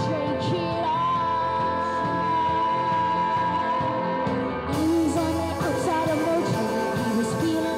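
A live rock band playing with a singer, who holds one long note for about four seconds. About five seconds in the band's sound turns brighter and fuller.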